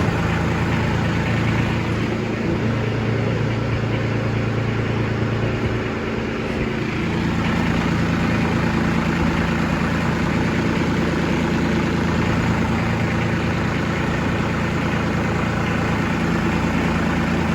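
Kubota B2601 compact tractor's three-cylinder diesel engine running steadily, its note shifting slightly about six seconds in.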